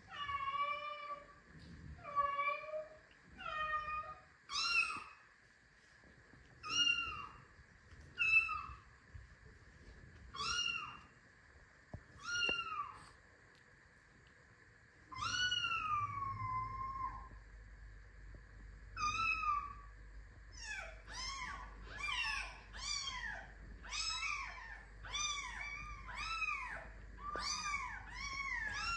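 Recorded cat meows played from a TV: separate meows about one a second, then spaced a second or two apart with one long falling meow, then from about two-thirds of the way through a fast run of shorter meows, about two a second.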